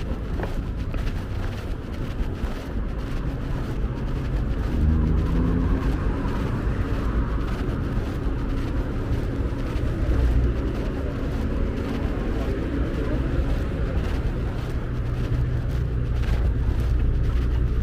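City street traffic: cars driving past on the road alongside, a steady low rumble of engines and tyres.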